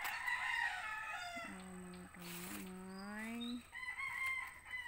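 A rooster crowing once, one long crow of about two seconds starting about a second and a half in, with shorter, higher calls before and after it.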